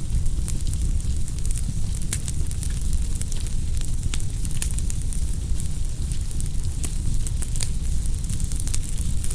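Wood fire burning: a steady low rumble of flames with frequent small, sharp crackles and pops.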